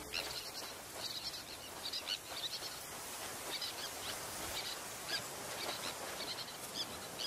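A busy breeding colony of pied avocets and terns calling: many short, high calls overlapping at irregular intervals over a steady outdoor hiss.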